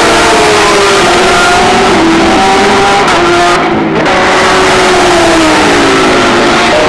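A pack of GT3 race cars' engines at full racing speed, several engine notes at different pitches at once. Their pitches step down with gear changes and slide as the cars pass. The sound dips briefly about four seconds in.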